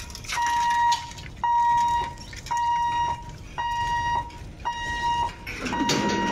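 Level-crossing warning buzzer beeping steadily, about one electronic beep a second, as the boom barriers come down to close the gate.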